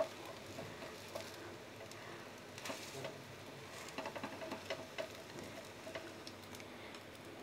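Faint, scattered crackling of an omelette frying in oil in a nonstick pan, with light taps and scrapes of a plastic spatula cutting it into quarters.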